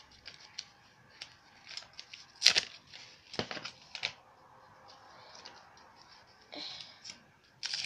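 Small plastic toy packaging handled and picked at by hand: scattered light clicks and rustles, with a soft crinkle near the end.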